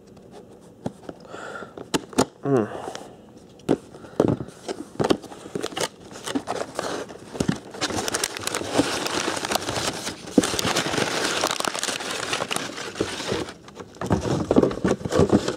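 Cardboard shipping box being opened: scattered clicks and scrapes as the taped box is cut with a knife and its flaps are worked open. About halfway through it turns into a dense, continuous crumpling and tearing of brown kraft packing paper being pulled loose.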